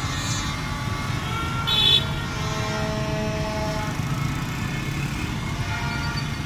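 Road traffic going past: steady engine and tyre rumble as cars drive by close. A short, loud, high-pitched toot sounds just before two seconds in, and fainter horn-like tones are held after it.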